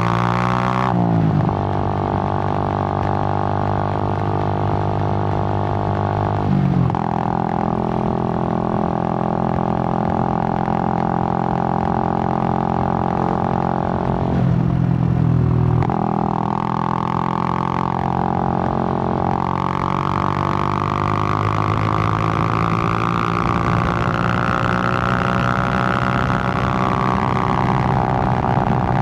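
Suzuki GN125's single-cylinder four-stroke engine running as the motorcycle is ridden, a steady drone at mostly even revs. It briefly breaks and shifts pitch about 7 and 15 seconds in, then the revs climb gradually through the second half.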